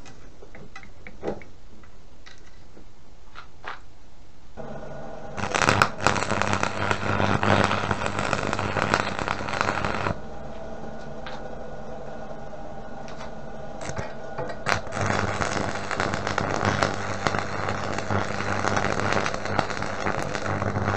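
Electric arc welding of steel bars: a steady hum comes on about four seconds in, then two runs of crackling, sizzling arc, each about five seconds long, with a short pause between them.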